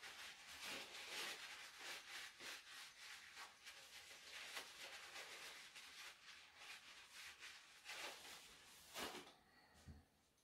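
Faint paper towel rustling and rubbing in quick, irregular strokes as a small chainsaw fuel filter is wiped clean by hand, stopping about nine seconds in.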